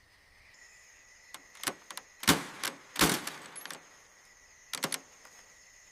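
A series of sharp metallic clinks and knocks, loudest a little over two seconds in and again at three seconds, then a last quick pair near the end, over a faint steady high-pitched tone.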